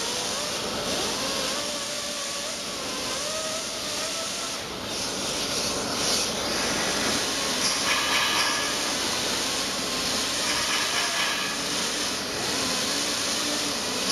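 Pneumatic die grinder with a small abrasive wheel running against bronze: a steady air hiss under a whine that wavers up and down in pitch as the tool is pressed and eased on the metal.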